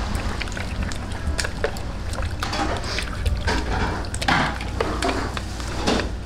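Long wooden chopsticks stirring raw pork pieces in beaten egg in a stainless steel bowl: wet squelching and sloshing with irregular clicks of the chopsticks against the bowl, over a steady low rumble.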